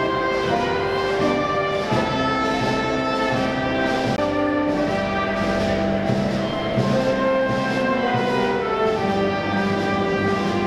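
Slow processional music from brass and orchestral instruments, held notes moving in chords that change every second or two.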